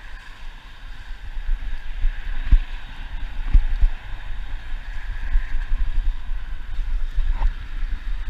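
Wind buffeting the microphone: an uneven low rumble that gusts up and down, with a few dull knocks in the middle.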